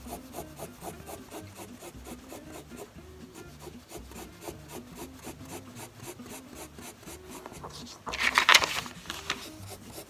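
Felt-tip permanent marker scratching rapid hatching strokes across paper, about six strokes a second. About eight seconds in, a louder scratchy rustle as the sheet of paper is slid and turned on the cutting mat.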